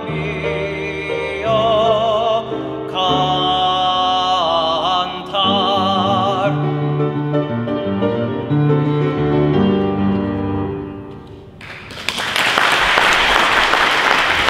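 A male classical singer holds the closing notes with a wide vibrato over piano accompaniment. The piano finishes alone and dies away, then applause breaks out near the end.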